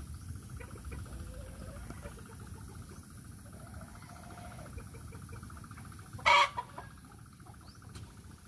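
Farmyard turkeys and chickens calling and clucking, with one loud, short call just after six seconds in, over a steady fast high trill.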